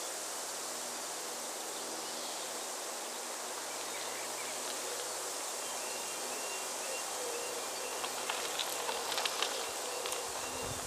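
Steady outdoor hiss, then in the second half a railway level crossing's warning alarm begins sounding in a fast repeating pattern of two high tones, the signal that the barriers are about to come down. A run of sharp clicks, the loudest sounds, comes just after it starts.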